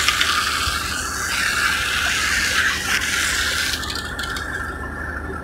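Water hose spraying hard onto the concrete-crusted steel hopper and chute of a cement mixer truck, a steady hiss of water on metal that thins about four seconds in, over a steady low hum.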